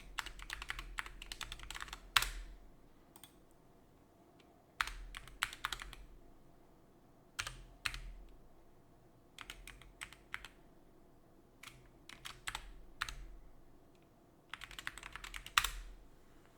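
Computer keyboard typing in short bursts separated by pauses, as login credentials are entered. A single sharper keystroke stands out about two seconds in and again near the end.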